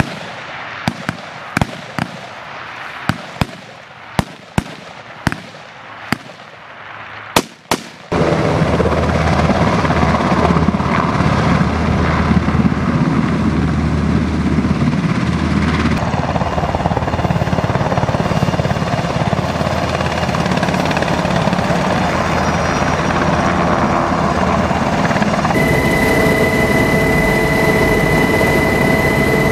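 A string of sharp rifle shots, about two a second, for the first eight seconds. Then, with a sudden switch, comes the loud steady running of a UH-60M Black Hawk helicopter's twin turbine engines and rotor. A high steady whine joins near the end.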